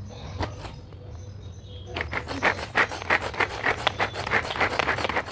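Manual hand chopper being worked on onions, a rapid run of clicking, clattering strokes about four to five a second starting about two seconds in, after a few light knocks as it is picked up.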